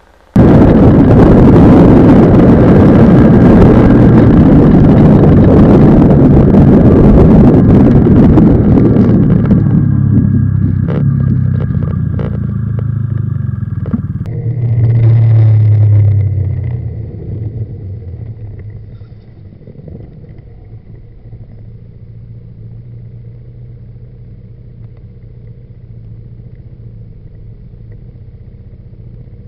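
Vehicle and road noise on a dashcam microphone in scooter traffic. A loud, even noise cuts in right at the start and fades after about ten seconds. A low engine note swells briefly around fifteen seconds, then a steady, much quieter traffic hum follows.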